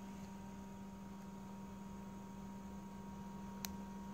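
Steady low electrical hum from bench test equipment, with a faint steady higher tone under it. A single sharp click near the end.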